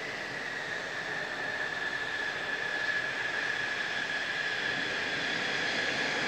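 Mitsubishi F-2 fighter's single F110 turbofan running at taxi power, a steady high-pitched whine over a rushing jet roar that grows slightly louder as the jet turns toward the listener.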